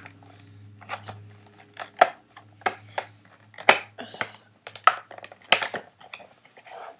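Irregular sharp clicks and taps of hard plastic packaging around a boxed Rubik's Cube being handled, about a dozen in all at uneven spacing, over a faint steady low hum.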